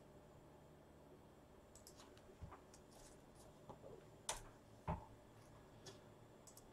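Faint, scattered small clicks and taps from handling things at a desk, with two sharper taps a little past the middle.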